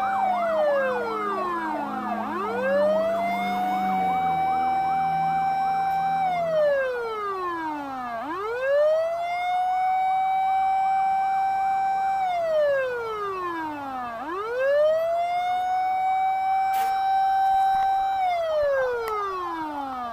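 Fire engine siren on a slow wail: the pitch sweeps up quickly, holds high for several seconds, then slides down, about once every six seconds. Early on a second, faster warbling siren overlaps and dies away about two seconds in.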